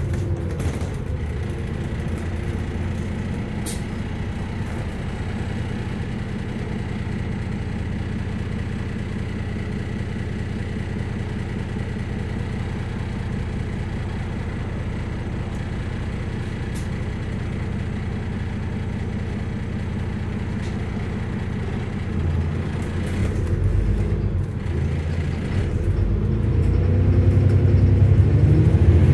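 Alexander Dennis Enviro400 MMC double-decker bus heard from inside the passenger saloon: the engine runs with a steady low hum, then from about 22 seconds in it grows louder and shifts in pitch as the bus accelerates.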